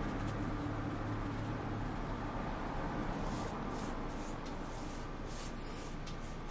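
A steady low background hum, with a few soft brushing strokes from about three seconds in as a hand rubs salt and pepper into a raw marbled beef steak on a wooden board.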